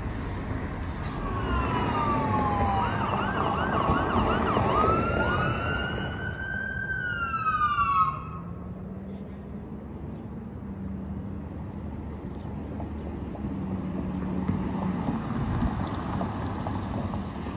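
Fire truck siren wailing and switching to a rapid yelp over the rumble of the truck's engine, cutting off abruptly about eight seconds in. After that, quieter traffic noise and the steady hum of an approaching ambulance's engine.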